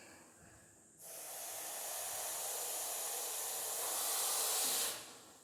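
Russell's viper giving one long, loud defensive hiss, a forced exhalation that starts abruptly about a second in, grows slightly louder and stops about four seconds later.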